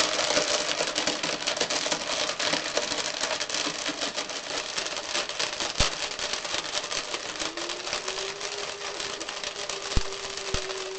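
Blendtec blender running a preset cycle with Lego bricks in the jar: a dense, rattling clatter of hard plastic pieces being smashed against the jar and blades. The motor's steady tone comes through in the last few seconds, with a couple of sharp knocks near the end.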